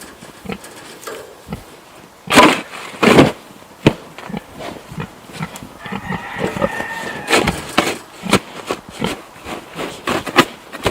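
Snow shovel scraping and crunching through deep snow: two loud strokes close together about two and a half seconds in, then lighter scrapes and knocks.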